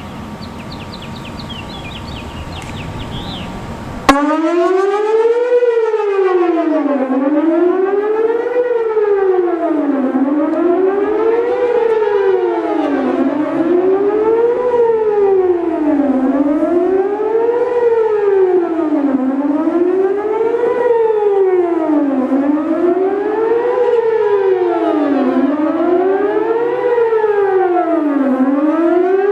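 Whelen WPS 4008 electronic tornado siren coming on suddenly about four seconds in, sounding a loud wail that rises and falls in pitch in a regular cycle about every two seconds, with echoes; it is sounding for a test of the tornado warning system.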